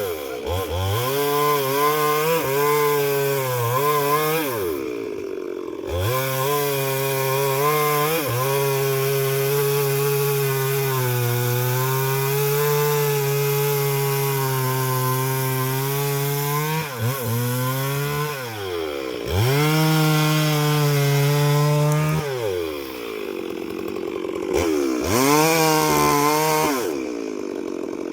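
Chainsaw cutting wood: the engine holds high revs in the cut, bogs down under load and revs back up several times, with brief drops to lower revs in between.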